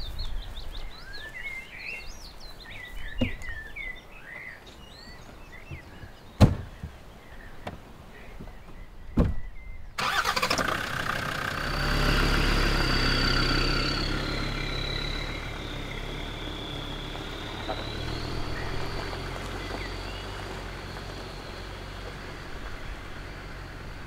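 Several birds calling, with a few sharp clicks. About ten seconds in, a sudden cut to a motor vehicle's engine running, with a steady high whine that dips a little and comes back.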